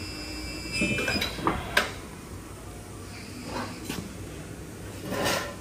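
A few separate light knocks and clicks of handling, with a short rustling burst near the end, and a faint steady high whine that stops about a second in.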